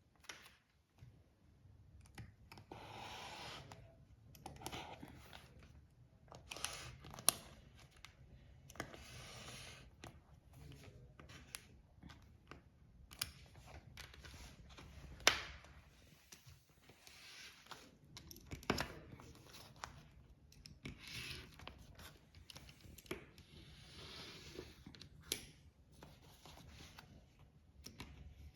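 Rubber fridge door seal being worked by hand, making repeated tearing, scraping strokes a second or two long with sharp clicks and snaps between them.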